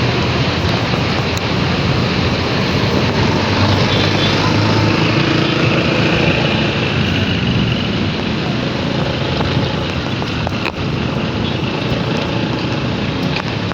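Steady riding noise: a motorcycle running at road speed, with wind rushing over the microphone.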